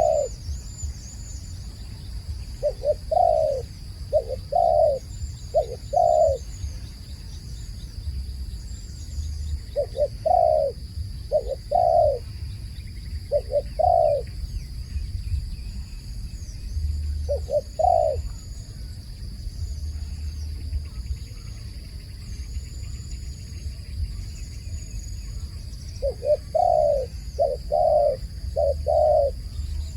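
Dove cooing: groups of three or four low coos, with a single coo between groups, repeated every several seconds. Other birds chirp faintly and high in the background over a steady high whine.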